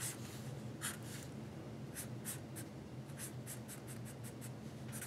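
Black felt-tip marker stroking across paper while inking lines: faint, short scratchy strokes, a few spaced apart at first, then several quicker ones in a row from about three seconds in, over a faint low hum.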